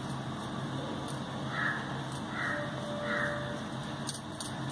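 A bird calling three times, evenly spaced just under a second apart, over a faint steady hum.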